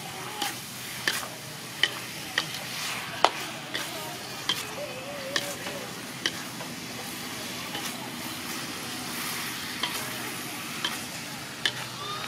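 Wooden spatula stirring beef balls in sauce in a metal wok, scraping and knocking against the pan with sharp clacks every second or so, pausing for a couple of seconds in the later part. The food sizzles steadily underneath.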